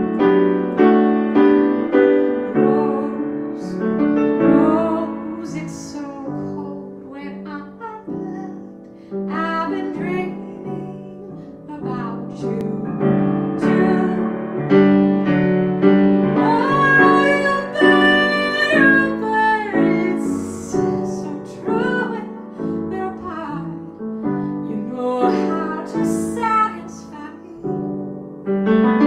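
A woman singing while accompanying herself on a grand piano.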